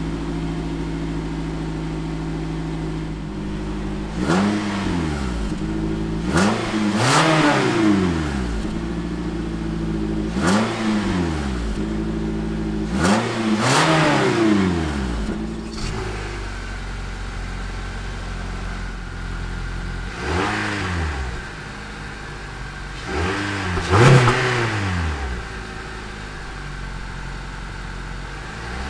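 Exhaust of a 2016 Nissan Rogue's 2.5-litre four-cylinder idling and blipped in several quick revs, each rising and falling straight back to idle. About halfway through, a Honda CR-V's 2.4-litre four-cylinder exhaust takes over, idling more quietly with a few more short revs.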